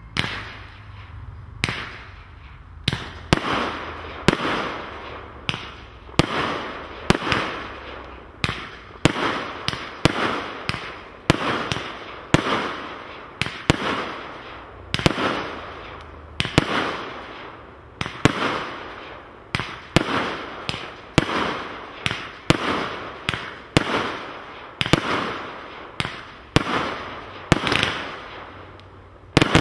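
Hallmark 'The Amazing 4' firework cake in its aerial salute section, firing shot after shot about once or twice a second. Each is a sharp bang that fades off quickly.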